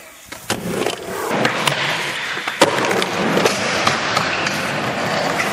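Skateboarding: wheels rolling steadily over a hard park surface, with sharp clacks of the board striking. The loudest clack comes about two and a half seconds in.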